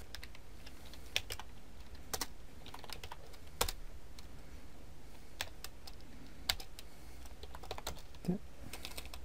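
Computer keyboard keys tapped in scattered, uneven keystrokes, roughly one a second, over a steady low hum.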